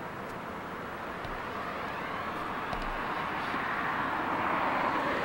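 A steady rush of vehicle noise that swells gradually louder, as of a vehicle approaching.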